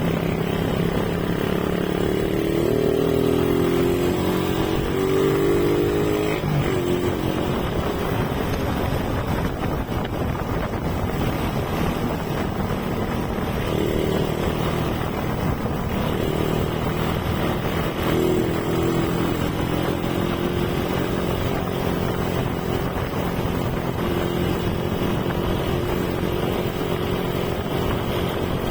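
Motorcycle engine running while riding, its pitch rising and falling a few seconds in and then holding fairly steady, over a constant rush of road and air noise.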